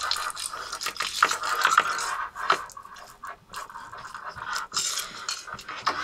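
Aluminum foil crinkling and crackling as it is wrapped tightly around a coax cable splice and the excess torn off.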